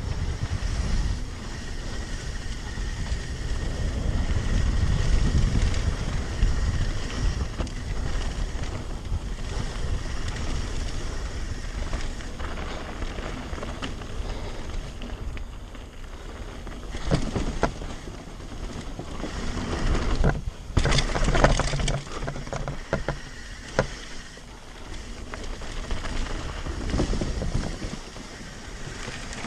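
Wind rushing over the camera microphone and the tyre rumble of a mountain bike riding fast downhill over wooden boardwalk and dirt trail. A cluster of sharp knocks and rattles from the bike comes about two-thirds of the way through.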